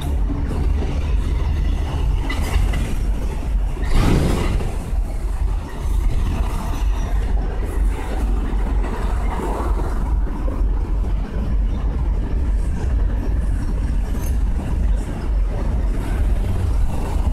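City street traffic noise: a steady low rumble of engines and passing vehicles, swelling briefly about four seconds in.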